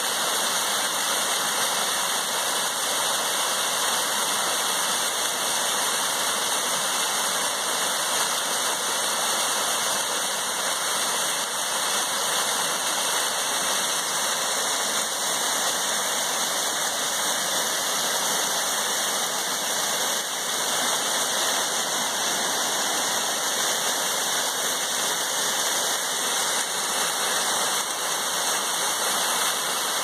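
Small woodland waterfall cascading down over rocks: a steady, unbroken rush of water.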